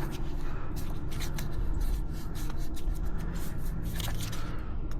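Many light clicks and scrapes of parts being handled and fitted on a car radiator, over a steady low rumble.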